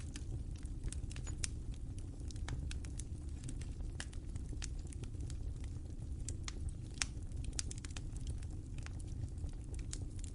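Fire crackling: irregular sharp pops and snaps, several a second, over a steady low rumble of burning, with one louder pop about seven seconds in.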